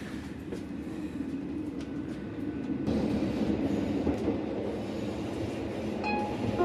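Metre-gauge Chemins de fer du Jura train running on the track: a steady rumble of wheels and rails that grows louder about three seconds in.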